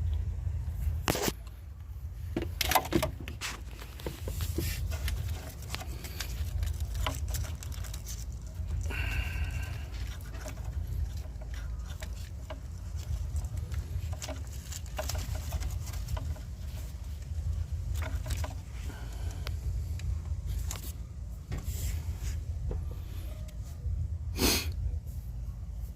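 Scattered clicks, taps and scrapes of hands and a tool working at the purge valve's plastic electrical connector, trying to release its clip, over a steady low rumble.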